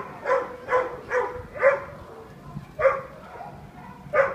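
A dog barking in short, sharp barks: four quick ones in the first two seconds, then one near the three-second mark and one more near the end.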